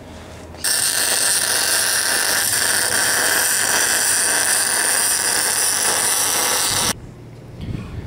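MIG welder laying a continuous weld bead on steel box section: a steady, dense crackle that starts abruptly about a second in and cuts off sharply near the end.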